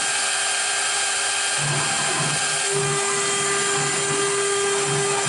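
DIY CNC router spindle running at speed with a 90-degree V-bit, a steady high whine over a hiss. From about a second and a half in, a low hum comes and goes.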